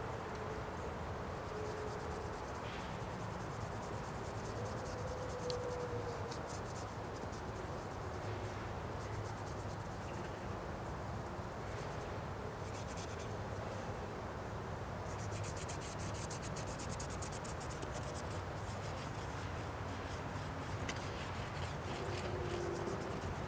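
Paintbrush scrubbing paint across a clear painting panel in runs of quick scratchy strokes, over a steady outdoor background hiss.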